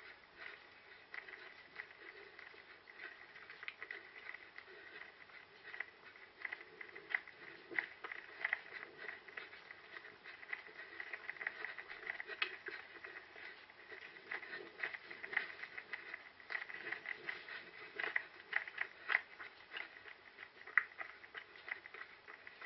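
Footfalls of a runner moving over rough ground, an irregular stream of soft taps and rustles over a steady hiss.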